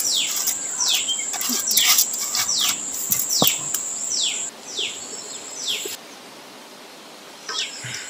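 Outdoor ambience: a steady high-pitched insect drone, like crickets, under a bird giving a series of short falling calls, a little faster than one a second. The drone drops out for a while past the middle, and there is one sharp knock about three and a half seconds in.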